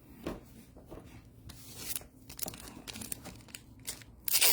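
Packaging crinkling and tearing in a string of short, irregular rustles, with the loudest burst near the end.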